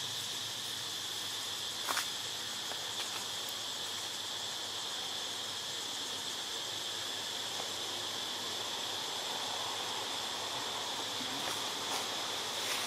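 Forest insect chorus, a steady high-pitched drone, with a single sharp click about two seconds in and a few faint ticks near the end.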